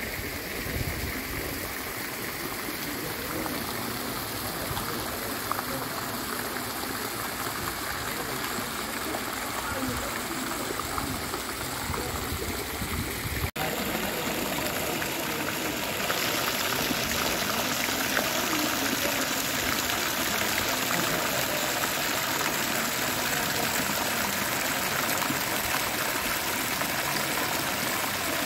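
Pool fountain running, its jets splashing steadily into the water with an even rushing hiss. After a brief dropout about 13 s in, the splashing gets louder and fuller from about 16 s in.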